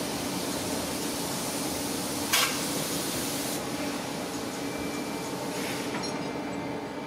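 Train running, a steady rolling noise with a low hum, broken about two and a half seconds in by a short, sharp hiss.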